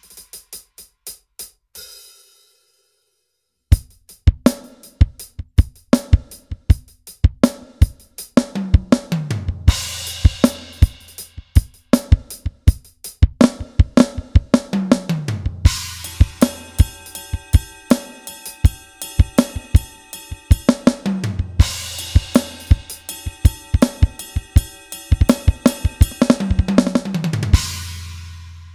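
Acoustic drum kit samples played on a Roland SPD-SX sampling pad with sticks: a few light taps, a pause of about two seconds, then a groove of kick, snare and cymbals. Tom fills falling in pitch break it up about every six seconds, and it ends on a long ringing hit.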